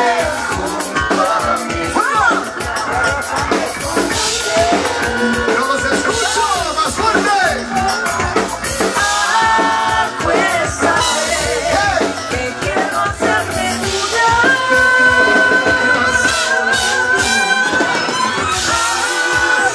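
Live band playing a song, with a woman singing lead through a microphone over keyboard, electric guitar and drums. A long held note sounds in the last few seconds.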